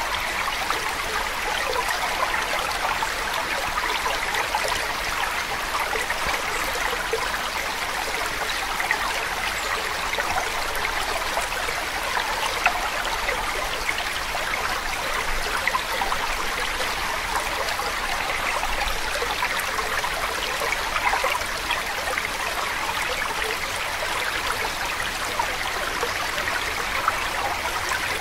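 Steady, unbroken sound of running water, like a flowing stream, with no change in level.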